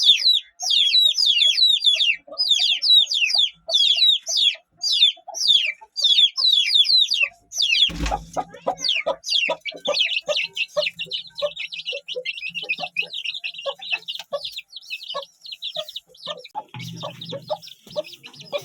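Aseel chicks peeping: a dense, continuous run of quick, high peeps that slide downward in pitch, several birds calling over one another. A low thump about eight seconds in.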